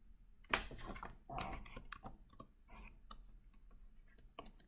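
Faint stylus clicks and scrapes on a tablet as handwriting is drawn: a longer scrape about half a second in, another shortly after, and a scatter of small clicks.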